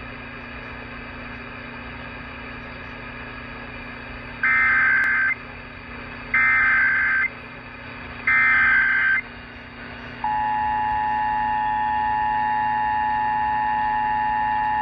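Emergency Alert System broadcast heard off the radio: three short bursts of SAME header data tones, each just under a second, about two seconds apart. Then, about ten seconds in, the steady two-tone attention signal begins. All of it sits over a background of radio hiss and hum.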